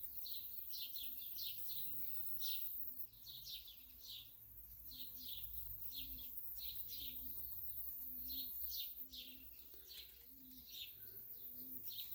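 Small birds chirping continuously: a busy chorus of short, high chirps, several each second.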